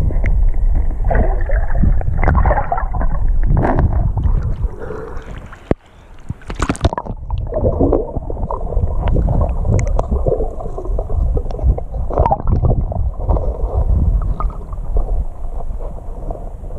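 River water heard through a submerged camera: a muffled, low rushing and gurgling with scattered knocks. About six seconds in it drops away briefly, then a short splash-like burst follows.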